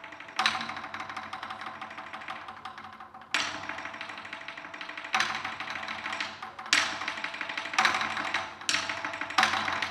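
Two Chinese drums beaten with sticks: a fast, dense run of strokes broken by loud accented strikes, which come closer together toward the end.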